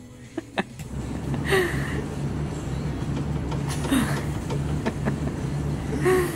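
A fire engine's diesel engine running, its low, evenly pulsing rumble getting louder about a second in after a couple of sharp switch clicks. A small child makes short vocal sounds three times over it.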